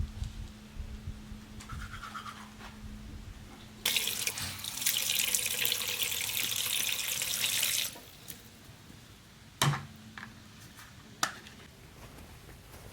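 Water running steadily for about four seconds, then stopping, followed by two sharp knocks.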